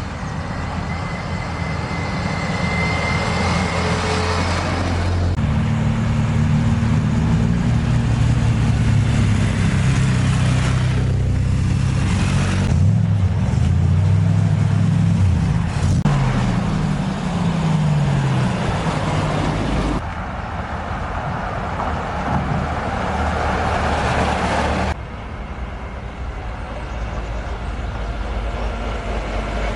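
Classic car engines running, their pitch rising and falling as they rev and move. The sound changes abruptly a few times.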